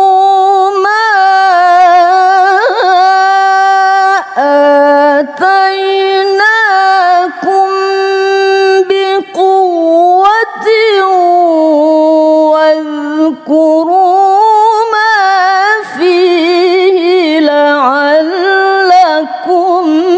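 A woman reciting the Quran in melodic tilawah style, drawing out long held notes with quick ornamental turns and short breaths between phrases.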